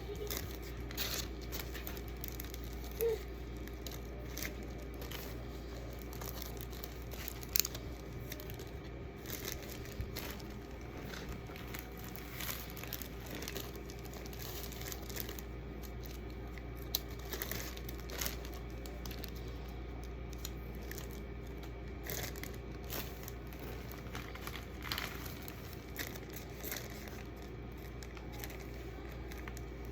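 Thin plastic bags and packaging crinkling and rustling as goodie bags are handled and filled, in a run of scattered small crackles and clicks.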